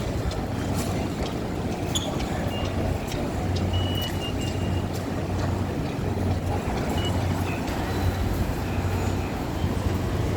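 Steady low rumble of background noise with a humming undertone that swells and fades, and a few faint short high beeps and ticks.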